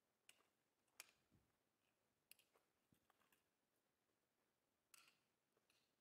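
Near silence broken by faint, irregular clicks and light crunches: a hiker's footsteps and trekking-pole taps on a dry-leaf-covered dirt trail, walking away.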